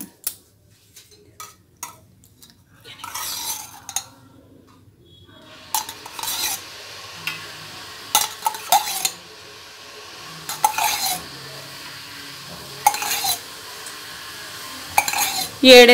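Spoonfuls of cooking oil going into a hot aluminium pan: the metal spoon clinks against the steel container and pan every second or two, and a faint sizzle starts about five seconds in as the oil heats in the pan.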